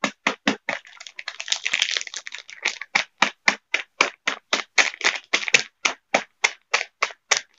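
Oreo biscuits being crushed inside their sealed plastic packet by quick repeated blows of a heavy steel pestle: sharp crunching taps with wrapper crinkle, about four a second, with a longer stretch of dense crinkling about a second in.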